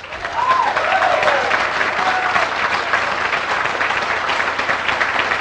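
Audience in a packed hearing room applauding, starting suddenly and going on steadily, with a few voices calling out in the first couple of seconds.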